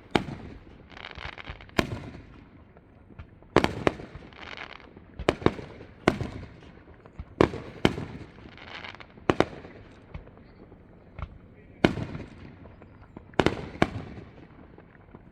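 Fireworks display: aerial shells bursting in sharp bangs one to two seconds apart, some in quick pairs. Several bangs are followed by about a second of hiss. The bangs stop shortly before the end.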